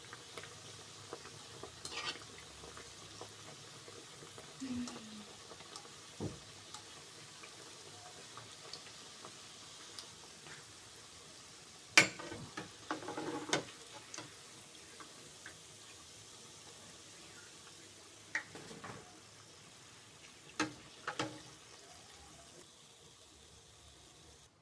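Faint sizzling of mandazi dough deep-frying in oil, with occasional clinks and knocks of kitchen utensils. The loudest is a sharp knock about halfway through, followed by a brief rattle.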